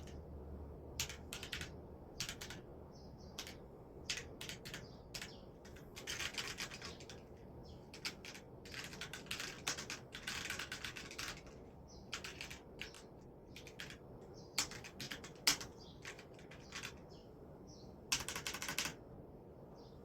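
EWEADN V20 Punk mechanical keyboard being typed on: scattered single keystrokes and several fast runs of clicking keys, with a couple of louder clacks about three quarters of the way through.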